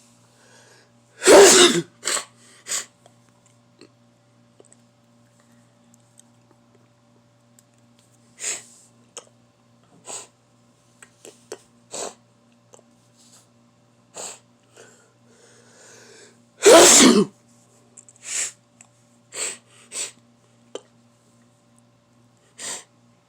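A person sneezing hard twice, the sneezes about fifteen seconds apart, with several shorter, fainter noises between and after them. A faint steady hum runs underneath.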